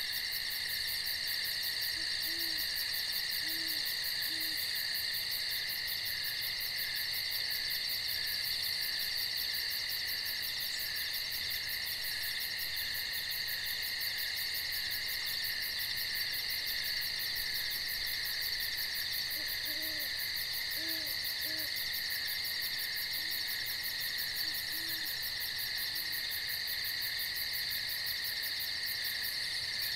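Steady night insect chorus, a continuous shrill trilling. Faint low hoots, an owl calling in short series, come a couple of seconds in and again from about twenty seconds in.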